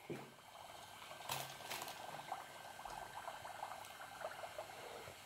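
Faint, continuous fine crackling and fizzing of many small bubbles popping as dry ice sublimates in soapy water, the foam overflowing its metal cup.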